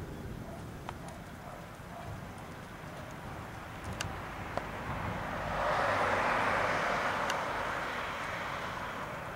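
Strong wind rumbling on the microphone, with a louder rushing swell that builds about five seconds in and fades away over the next three seconds.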